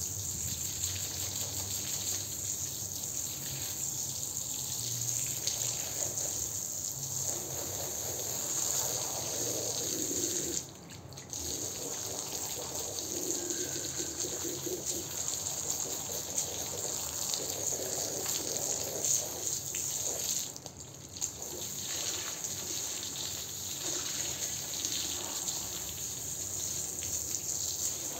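A jet of water spraying and splashing onto a soapy rug and the tile floor around it, rinsing out the foam: a steady hiss that stops twice for about a second, roughly a third and two-thirds of the way through.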